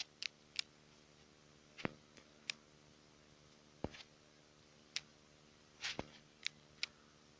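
Quiet handling noise: about ten light clicks and taps at irregular intervals over a faint steady hum.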